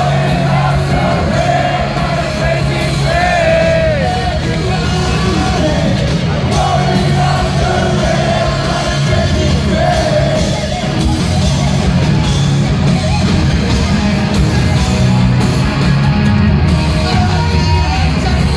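Live heavy metal band playing at full volume, with wavering singing and yells over loud guitars and drums.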